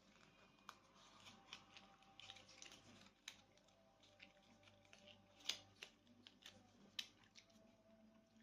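Faint scattered clicks, taps and rustles of small objects being handled, with two sharper taps about five and a half and seven seconds in.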